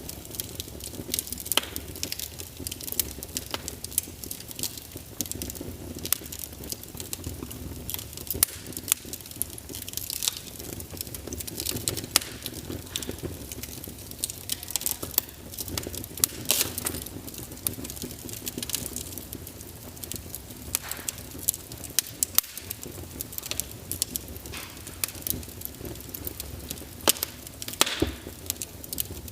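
Fireplace fire crackling, with frequent irregular sharp pops and snaps over a low steady rumble.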